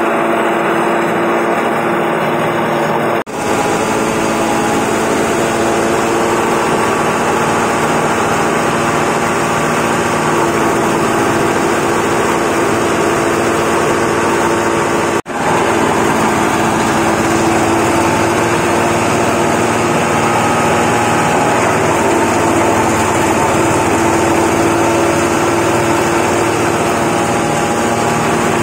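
Engine-driven rice husk grinding mill running steadily at working speed, a continuous loud mechanical hum with a few constant tones. It drops out for an instant twice, about three seconds in and again about fifteen seconds in.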